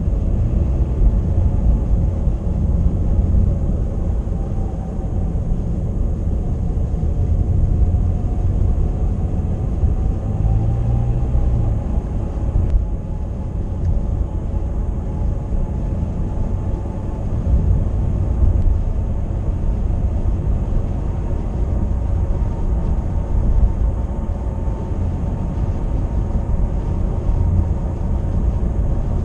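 Steady low rumble of a car driving, engine and tyre noise heard from inside, with a faint tone that slowly drifts up and down in pitch.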